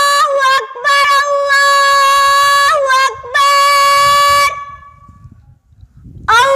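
Long melodic notes held at one very steady pitch, in three phrases with short breaks and a pause of over a second near the end.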